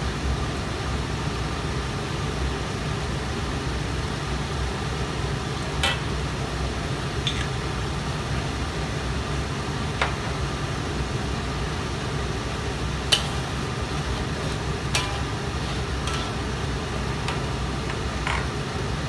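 Thick chili sambal sauce simmering in a steel wok, giving a few scattered sharp pops, over a steady low hum.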